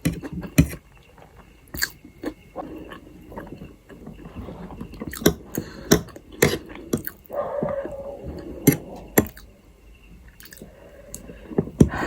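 Close-miked chewing of Maggi instant noodles: irregular wet smacks and sharp mouth clicks, with a brief hummed tone about seven seconds in.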